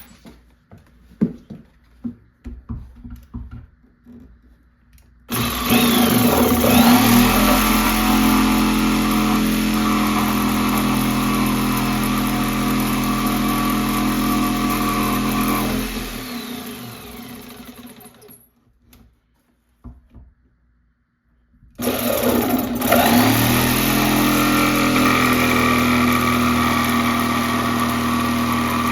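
Jigsaw cutting a notch in the edge of a door: a few light knocks first, then the motor spins up and runs steadily for about ten seconds before winding down. After a pause of a few seconds it starts again and keeps cutting.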